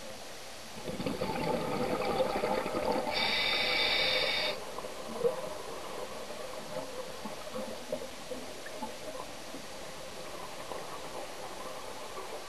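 A scuba diver's regulator: exhaled air bubbles gurgle for about three and a half seconds, ending in a high hiss. A single sharp click follows, then faint underwater hiss with scattered small ticks.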